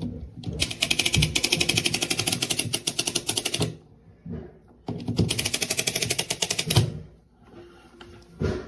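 A faulty hair dryer switched on twice, each time giving a rapid, rattling clatter, first for about three seconds and then for about two, before cutting out abruptly: the dryer shuts down after a few seconds and is broken.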